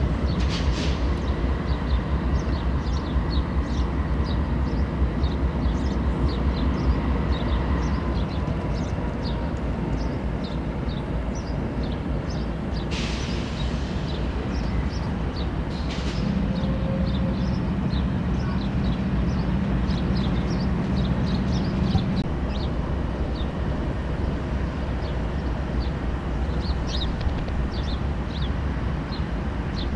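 Diesel freight locomotives idling with a steady low rumble; the engine note strengthens from about 16 seconds in and drops back about 22 seconds in. Two short hisses come about 13 and 16 seconds in, and faint high chirps run throughout.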